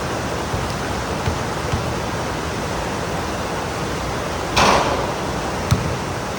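Heavy rain falling, a steady loud hiss. A brief louder rush of noise comes about two-thirds of the way in, then a single sharp tap a second later.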